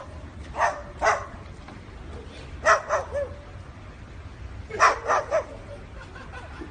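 A dog giving short, pitched vocal calls in groups: two, then two, then three, about two seconds apart.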